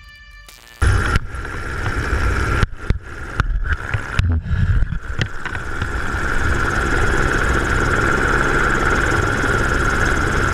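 Helicopter in flight heard from out on its skid: a steady high turbine whine over a loud, heavy wind rumble buffeting the microphone. It starts abruptly about a second in, with several brief dropouts in the first half.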